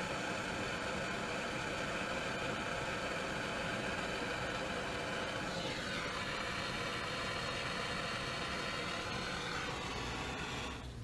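Steady machine drone with several whining tones. About halfway through, one whine slides down in pitch, and the sound cuts off suddenly near the end.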